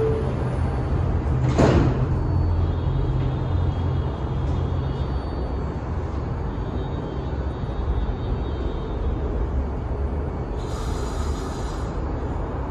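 R160 subway train's sliding doors closing with a thud about a second and a half in, then the stopped train humming steadily with a faint high whine. A short hiss of air near the end.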